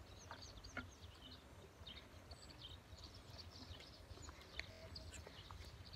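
Near silence with faint, scattered high chirps of small birds over a low background rumble.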